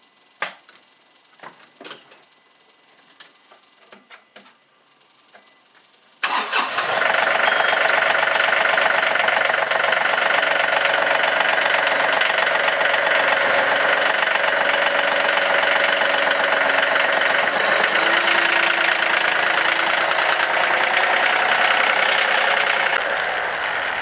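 A few light knocks and clicks, then about six seconds in a John Deere compact tractor's three-cylinder diesel engine starts and runs steadily. It drops in level near the end.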